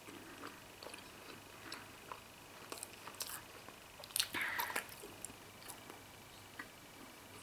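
A person chewing a mouthful of rubbery Emmentaler cheese, with small wet mouth clicks, and a louder bite into the block about four seconds in.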